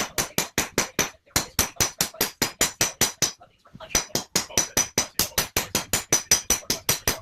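Hammer pounding hot steel on an anvil to shape a sword blade: fast, even blows about seven a second, each with a bright metallic ring. The blows pause briefly just after a second in and again for about half a second around three and a half seconds in.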